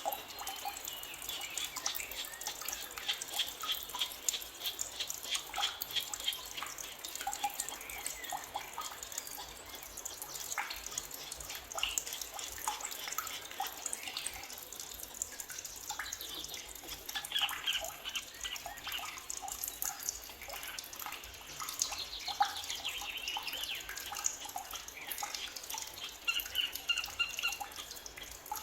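Forest birds chirping and singing, many short calls and a few quick falling trills, over a constant dense patter of tiny clicks.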